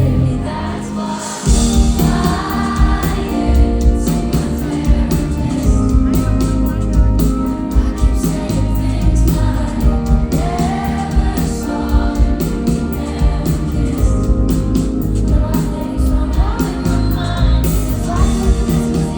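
Live concert audio of a pop song: a female lead vocal over a full band with heavy bass, the low end filling out about a second and a half in.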